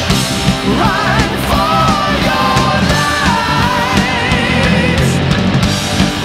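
Loud rock music soundtrack with a steady driving beat and a lead melody that wavers in pitch.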